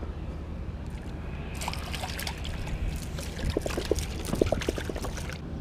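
Water splashing and trickling at a rocky waterline, with scattered small clicks and knocks starting about a second and a half in, as a small sea bass is brought down to the water to be released.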